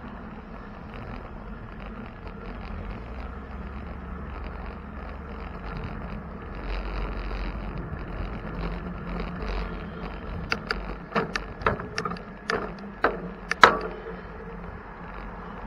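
Steady low rumble of wind and road noise from a bicycle ride, then a quick run of about seven sharp clicks or knocks about two-thirds of the way through, the last one the loudest.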